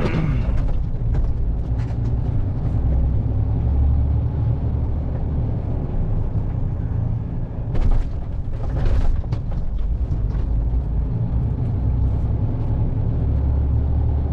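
Articulated lorry's diesel engine running, heard from inside the cab as a steady low drone, with a couple of short knocks or rattles about eight and nine seconds in.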